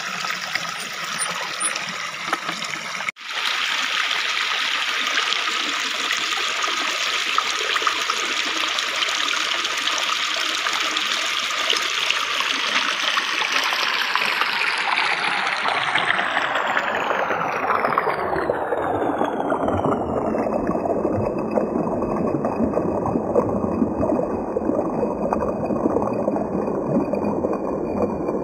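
Shallow stream water running and splashing over rocks, a steady rushing noise. There is a brief break about three seconds in, and from about the middle the sound slides steadily lower and duller, then stays muffled.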